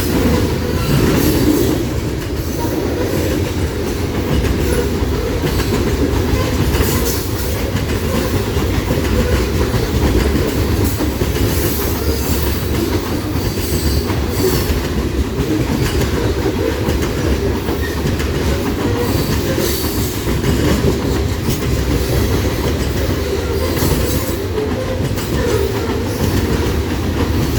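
Fully loaded coal hopper cars of a long freight train rolling steadily past. A constant heavy rumble with wheels clacking over the rail joints, and now and then a brief high wheel squeal.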